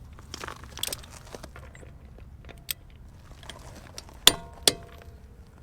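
Pittsburgh half-inch click-type torque wrench and socket working a wheel's lug nuts: scattered metal clicks and clinks, the loudest a sharp click with a brief metallic ring about four seconds in, followed quickly by another.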